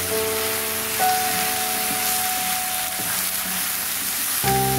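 Background music of slow, held chords that change about a second in and again near the end, over the hiss of vegetables sizzling as they are stir-fried in a wok with a wooden spatula.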